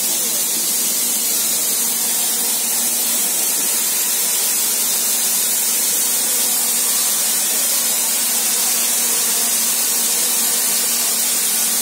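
A steady, loud hiss under a stopped train, even and unbroken, with a faint low hum beneath it.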